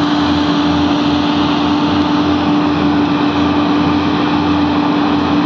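Diesel engines of heavy-haul tractor trucks running under load as they pull an oversize pressure vessel on a multi-axle trailer: a loud, steady drone with a constant humming tone through it and a low pulsing rumble underneath.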